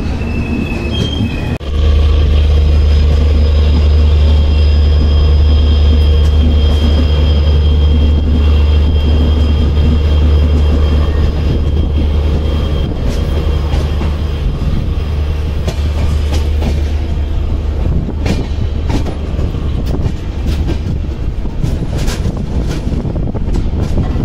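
Jan Shatabdi Express passenger train running on the track: a heavy, steady rumble comes in sharply about two seconds in, with a faint thin wheel squeal. Rail-joint clicks are added in the later part.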